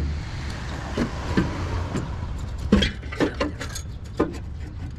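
A quick series of sharp knocks and clinks, mostly between about two and four seconds in, over a steady low vehicle rumble.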